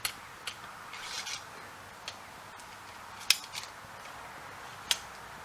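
Sharp metallic clicks and taps from a muzzleloader's ramrod and barrel as a patched ball is seated, spaced irregularly, with the loudest knock about three seconds in and another near the end.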